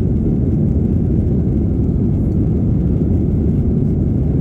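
Steady, deep cabin noise of an Airbus A320-family jet climbing after take-off: engine and airflow noise heard from inside the cabin, even throughout.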